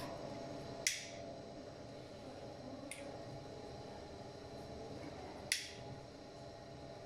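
Small scissors snipping at the edge of a KN95 mask: three short, sharp clicks, a loud one about a second in, a fainter one near three seconds, and another loud one about five and a half seconds in.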